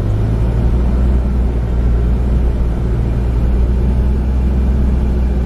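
A truck's engine and tyre noise droning steadily while it cruises at about 25 mph.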